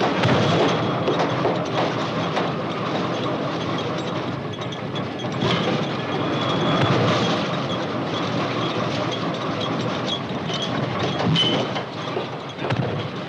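Construction-site machinery running, such as a pile-drilling rig and its cable winch: a continuous mechanical clatter with scattered sharp metal clanks and short high squeals.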